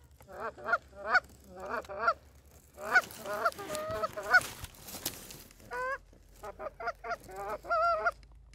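Canada goose honks and clucks, many short calls in quick runs with brief pauses between them. A short rustle with a sharp click comes about halfway through.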